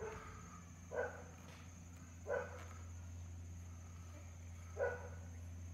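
A dog barking faintly three times, short single barks spaced a second or two apart, over a steady low hum.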